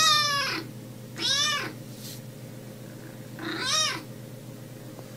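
Kitten meowing three times: short high calls, the first falling in pitch, the second and third rising then falling.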